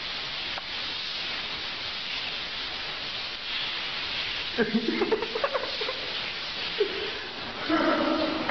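Shower spray running steadily. A person's voice breaks in briefly about halfway through and again near the end.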